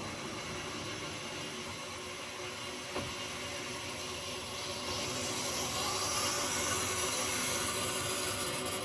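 Water rushing and hissing through the household supply pipes as the main water valve is opened and the plumbing refills, growing louder about halfway through.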